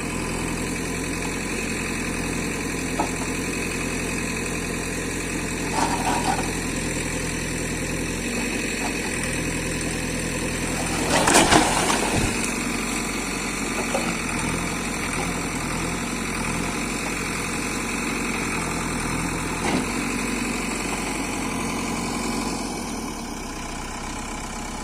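JCB 3DX backhoe loader's diesel engine running steadily at a low idle. A few light knocks are heard, and about halfway through there is a louder clattering crash.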